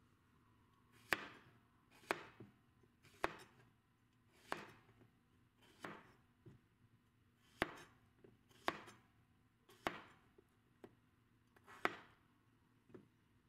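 Kitchen knife chopping vegetables on a cutting board: about ten slow, separate cuts, each a sharp knock, roughly a second apart.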